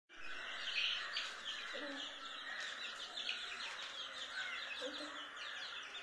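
Many young chicks peeping together: a steady chorus of short, overlapping high chirps.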